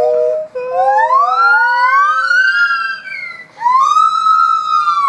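Gibbons calling together: overlapping steady hoots, then long whooping calls that climb steeply in pitch, and about three and a half seconds in another call that rises and falls again.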